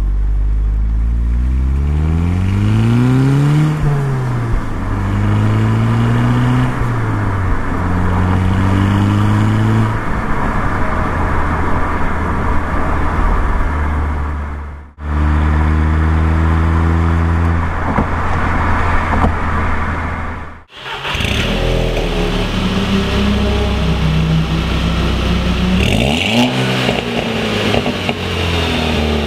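MK6 Volkswagen Golf GTI's 2.0-litre turbocharged four-cylinder on its stock exhaust, pulling through the gears: the pitch climbs, drops at each upshift and climbs again, then holds steady at cruise, followed by a second run after a cut. About 21 seconds in, the same engine with a catless downpipe and the stock exhaust idles at a standstill and is blipped, with short rev rises around 26 seconds and near the end.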